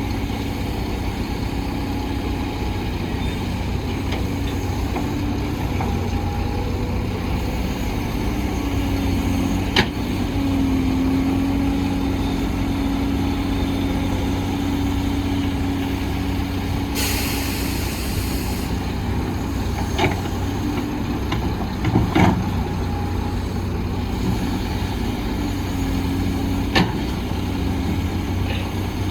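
Heavy diesel construction machinery running steadily, its engine note shifting now and then. About two-thirds of the way through a truck's air brake gives a short hiss, and a few sharp knocks sound at intervals.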